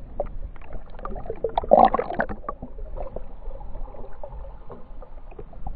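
Underwater lake sound heard through a GoPro's waterproof housing: muffled water gurgling and moving, with many small clicks. It swells into a louder gurgle about two seconds in.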